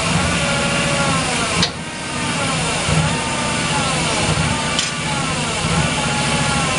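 Heavy-equipment engine running, its pitch rising and falling about once a second as it is revved, with a sharp metallic clank about a second and a half in.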